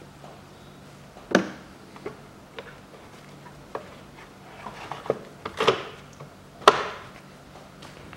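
Hard plastic air intake duct being pressed back into place in an engine bay: a series of sharp plastic knocks and clicks, the loudest about a second and a half in and again near seven seconds in, with a quick cluster of them just before.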